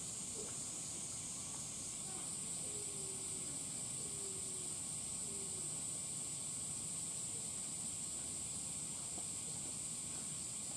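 Steady high-pitched hiss, with faint distant voices murmuring underneath.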